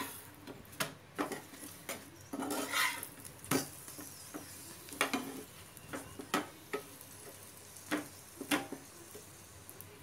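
A flat spatula scraping and pressing a paratha on an oiled tawa: a dozen or so irregular scrapes and taps, with a faint sizzle of frying oil underneath, as the paratha is shallow-fried in oil.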